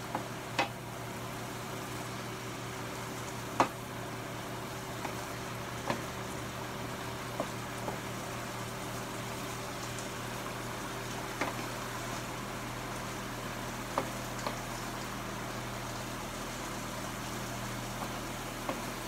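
Green beans sautéing in olive oil and soy sauce in a stainless steel skillet: a steady sizzle, with short sharp knocks now and then as a wooden spatula stirs them against the pan.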